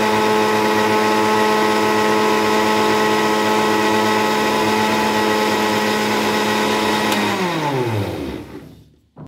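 Electric mixer grinder running steadily as it blends a milk-and-banana smoothie in its plastic jar. About seven seconds in it is switched off, and its pitch falls away as the motor spins down to a stop.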